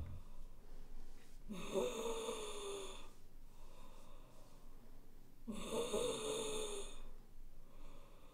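A woman lying passed out on the floor snores twice, each snore about a second and a half long with a slightly falling pitch, the two about four seconds apart.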